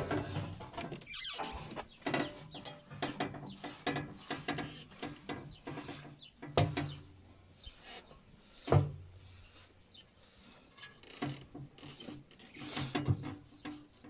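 Steel front-axle parts of a Cat 434E backhoe loader being handled: scattered metallic clicks and clinks with a few louder knocks, and a rag rubbing inside the knuckle's bearing housing near the end.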